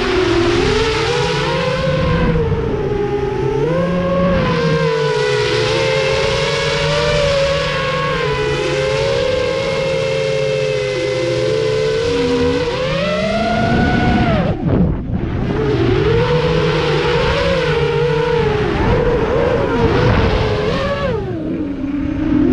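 FPV quadcopter's brushless motors and propellers whining, the pitch rising and falling constantly with the throttle. About fifteen seconds in, the whine drops away and cuts out for a moment as the throttle is chopped, then comes back.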